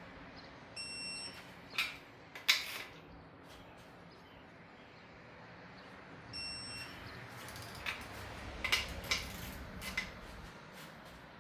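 Two short electronic beeps about five and a half seconds apart, from a torque angle tool signalling that an LS main cap bolt has reached its target angle. After each beep come sharp metallic clinks of the wrench and socket on the bolts.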